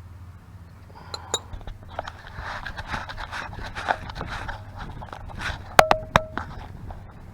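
Metal tools and parts being handled, with clinks and scraping, then two sharp metallic clanks about six seconds in that each ring briefly.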